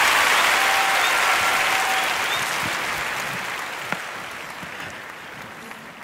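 Audience applauding, the applause slowly dying away.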